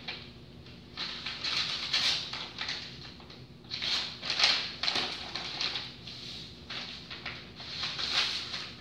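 Sheets of paper being handled, leafed through and turned over, rustling in irregular bursts.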